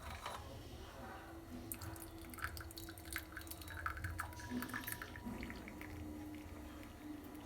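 Freshly boiled tea being strained into a cup: liquid pouring and dripping through a tea strainer, with a few light clicks and taps in the middle.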